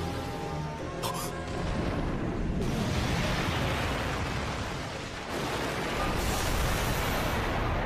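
Anime battle sound effects: impacts and crashing rubble with a rushing roar, laid over dramatic background music. There is a sharp crack about a second in, and a sudden loud surge of noise at about two and a half seconds.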